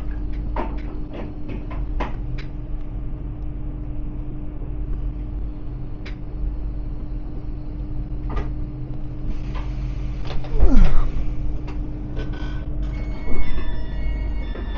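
Inside a passenger train: a steady low rumble and hum with scattered clicks and knocks. About ten seconds in there is a loud burst with a falling whine. Near the end comes a sudden loud sound and beeping tones as the sliding doors open.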